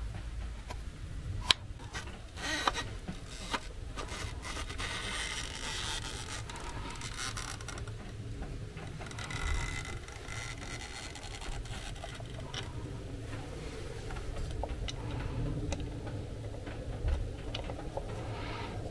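Faint scraping and scattered light clicks of hands handling metal parts around a GAZ-66 engine's distributor and intake pipe during reassembly.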